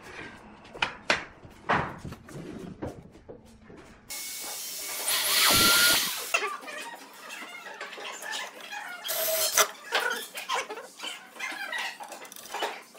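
Woodworking shop sounds: a few sharp knocks on wood, then a power drill runs for about two seconds with a rising whine, followed by small wooden knocks and clatter as a pine drawer box is handled on the bench.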